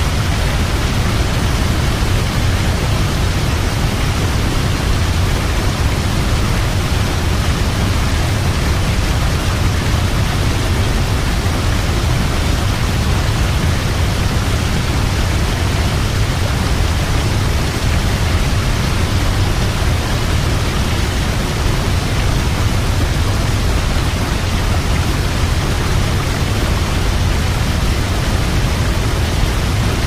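Large waterfall plunging over a cliff into a river: a loud, steady roar of falling water with a deep rumble underneath.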